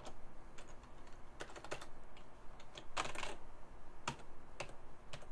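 Typing on a computer keyboard: an uneven run of short key clicks.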